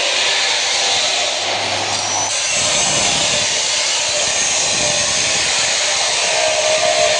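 Angle grinder cutting with a steady, loud, hissing grind.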